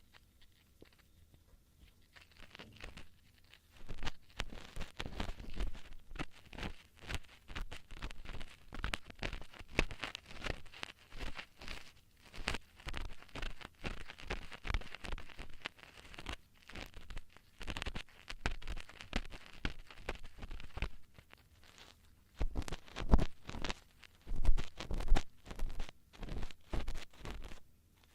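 Ear-cleaning tools scratching and rubbing right at the microphone in quick, closely spaced strokes. They begin after about two seconds of quiet, ease off briefly near the end, then return louder.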